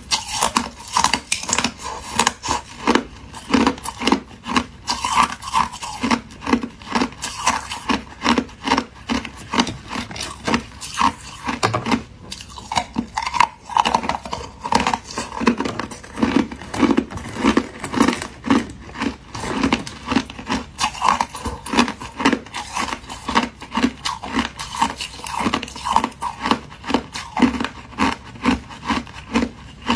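Thin sheets of clear ice being bitten and chewed, crunching and crackling in a quick, steady run of crunches, two or three a second.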